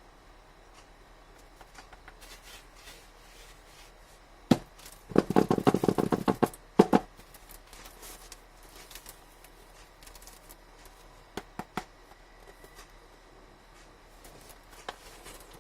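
Smartphone retail packaging being handled and opened: a sharp tap about four and a half seconds in, then about a second and a half of rapid crackling and tearing, closed by another tap, with a few light clicks later.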